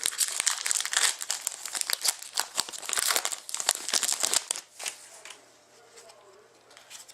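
A foil trading-card pack wrapper being torn open and crinkled by hand. It makes a dense crackle for about four and a half seconds, then dies down to quiet handling.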